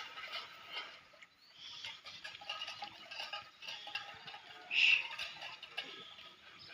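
Flock of munias (burung emprit) in a rice paddy: scattered faint chirps, with one louder call about five seconds in.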